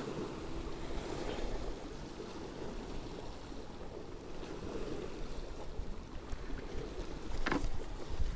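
Steady washing of moving sea water, with some wind on the microphone. A brief, sharper sound comes near the end.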